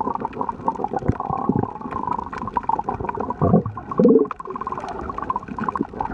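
Underwater gurgling and bubbling with many small clicks. A short, louder, pitched gurgle about three and a half to four seconds in falls in pitch.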